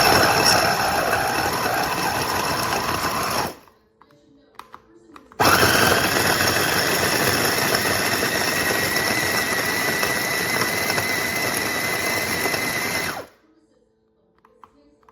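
Electric food chopper's 450 W motor spinning its blades in two runs: about three and a half seconds, a short pause, then about eight seconds, with a steady high whine.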